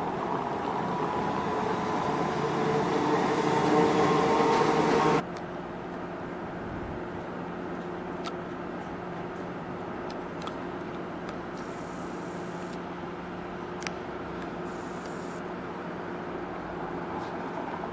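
Electric streetcar running past close by, its steady whine and rolling noise growing louder until a sudden cut about five seconds in. A quieter steady hum follows, with a few faint clicks, as a streetcar approaches from far down the track.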